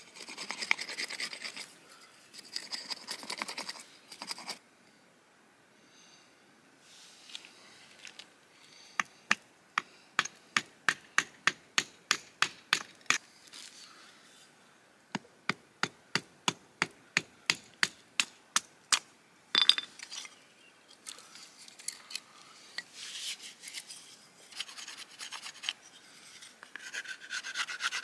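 Stone tools working wood by hand: rasping scraping strokes of stone on a wooden stick, broken in the middle by two runs of sharp ticks about three a second, then one louder click before the scraping starts again and grows louder near the end.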